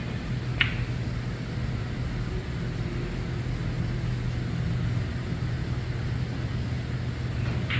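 A snooker shot being played: one sharp click about half a second in, a second click near the end, over a steady low hum.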